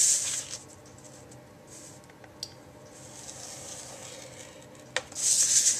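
A scoring stylus scraping along a groove of a plastic scoring board through a sheet of paper. There is one scratchy stroke at the start and another near the end, with a couple of light clicks in the quieter stretch between.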